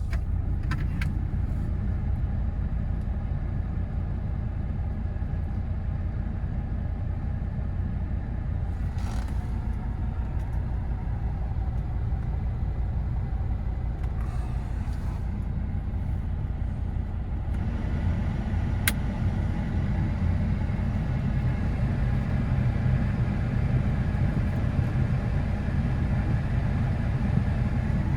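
Mercedes-Benz W123 engine idling steadily at operating temperature, with a few faint clicks. The idle gets a little louder about two-thirds of the way through.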